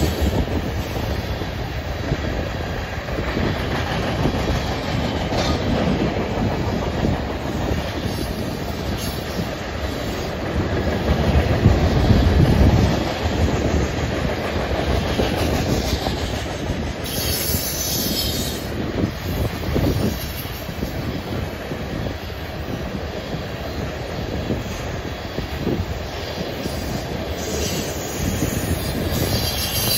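Freight train tank cars rolling past: a steady rumble and clatter of steel wheels on rail, swelling louder around the middle. High wheel squeals come in briefly twice, past the middle and near the end.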